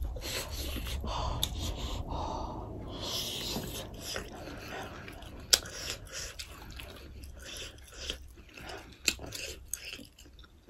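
Close-miked chewing of momo dumplings, with irregular wet mouth smacks and clicks. A few louder smacks come about halfway through and near the end.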